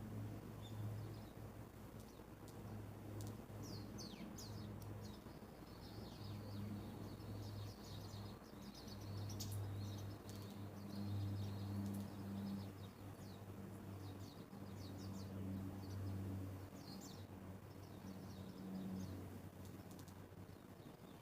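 A flock of Japanese white-eyes calling with many short, high chirps, busiest in the first half, over a low rumble that comes and goes.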